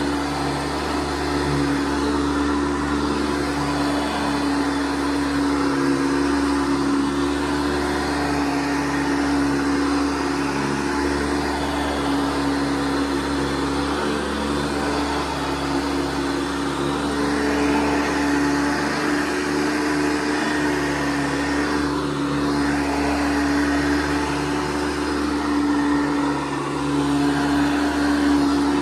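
A 1982 Hoover Guardsman upright vacuum cleaner running while vacuuming: a steady motor hum with a strong even tone under a rushing hiss, shifting a little past the middle.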